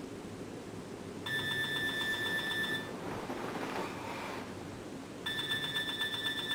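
Electronic alarm clock beeping: two bursts of rapid high-pitched beeps, each about a second and a half long, the first about a second in and the second near the end.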